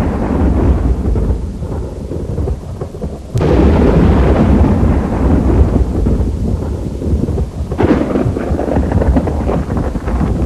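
Thunderstorm: a steady low rumble with rain, broken by a sharp thunderclap about three and a half seconds in and another near eight seconds in.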